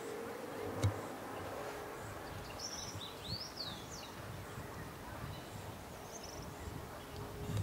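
Quiet outdoor ambience of low wind and background noise with a few short bird chirps, a cluster of rising-and-falling ones about three seconds in and another near six seconds. A faint steady hum fades out about two seconds in, and there is a single soft tap about a second in.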